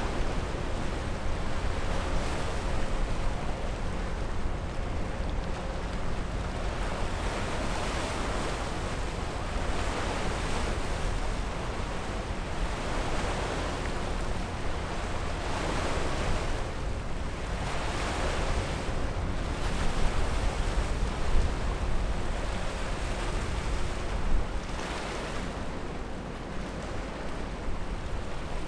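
Waves on choppy river water splashing and washing, swelling and easing every few seconds, with wind rumbling on the microphone.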